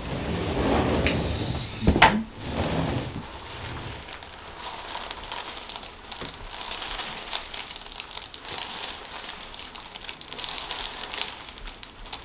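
Body and hands shifting on a chiropractic treatment table during a stretch: a muffled rustling shuffle with one sharp snap about two seconds in, then steady crinkling and rustling.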